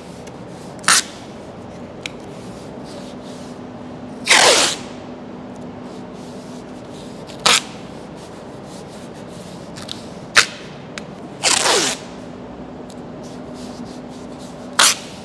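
Wide masking tape ripped off the roll in several short, rasping pulls as it is laid over a car's front guard. The two longest pulls come about four and a half and twelve seconds in.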